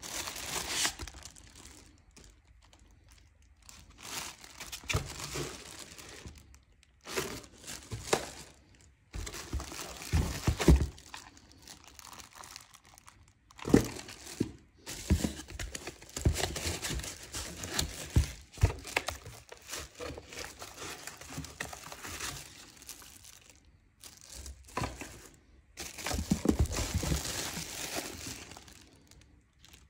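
Plastic packaging bags crinkling and rustling in irregular bursts as wrapped parts are handled and lifted from a cardboard box with foam inserts, with a few sharper knocks.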